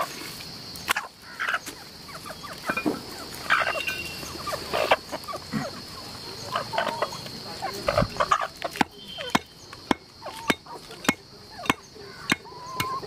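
Heavy cleaver striking through a large magur catfish onto a wooden tree-stump block: a series of sharp knocks at irregular intervals, over a steady high insect buzz and scattered bird calls.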